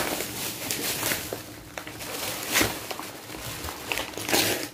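Gift wrapping paper rustling, crinkling and tearing as a present is unwrapped by hand, with louder rips about two and a half seconds in and again near the end.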